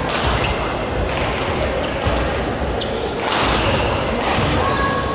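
Badminton rally: sharp racket strikes on the shuttlecock roughly a second apart, with short squeaks of shoes on the court floor, echoing in a large sports hall.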